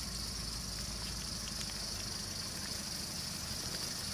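Nissan four-wheel drive's engine idling steadily, a low even rumble, with a steady high-pitched hiss over it and a few faint ticks.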